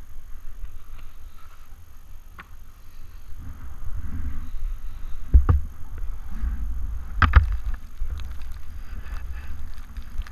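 Skis scraping and hissing over chopped-up snow on a downhill run, with wind buffeting the microphone as a low rumble. Two sharp knocks come about five and seven seconds in.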